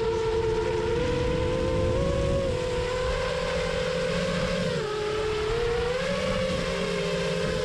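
Whine of a 6-inch FPV quadcopter's four Xing 2208 1800KV brushless motors and three-blade props, the pitch wavering with the throttle: it dips about five seconds in and climbs back a second later, over a low rush of wind.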